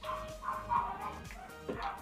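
A dog yapping repeatedly, about two short yips a second, over background music.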